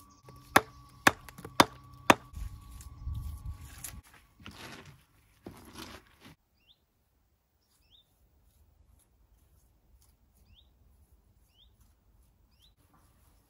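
Four sharp hammer blows on stone, about half a second apart, followed by some scraping and rustling. Then quiet outdoors, with a small bird giving a few faint short chirps.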